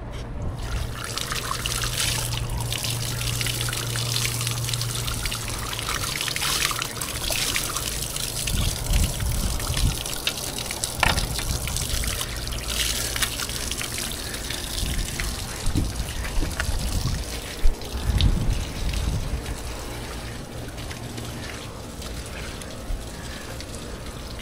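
Water trickling and splashing. A low steady hum runs under it for the first several seconds, and scattered knocks and clatter come through the middle.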